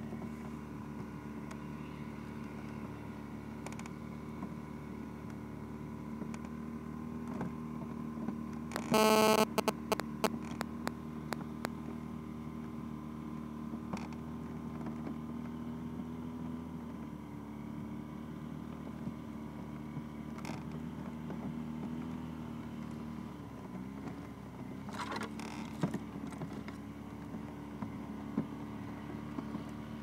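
Buran snowmobile's two-stroke engine running steadily while towing a sled, heard from the sled; the engine note dips briefly about two-thirds of the way through. A loud, harsh burst about nine seconds in, and scattered knocks and clicks.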